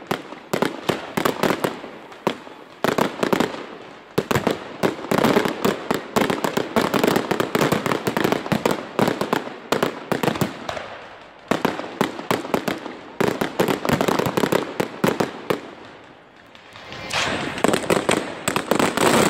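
Fireworks display: aerial shells bursting in rapid volleys of bangs and crackling, easing off briefly about sixteen seconds in before building again.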